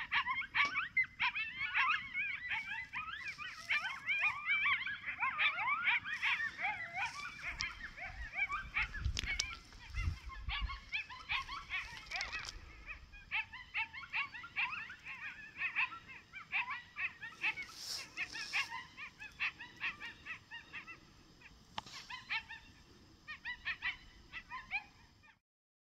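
A pack of coyotes yipping and howling, many quick rising and falling calls overlapping at first and thinning out toward the end. A gust of wind rumbles on the microphone about ten seconds in, and the sound cuts off suddenly near the end.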